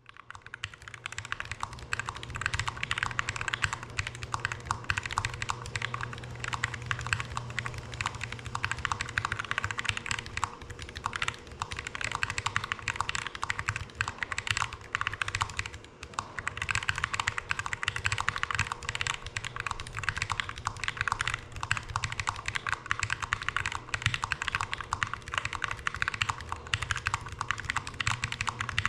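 Fast, continuous typing on a handwired split mechanical keyboard with Akko Lavender Purple switches and KLP Lamé low-profile keycaps: a dense stream of keystroke clacks, with a brief lull about halfway through.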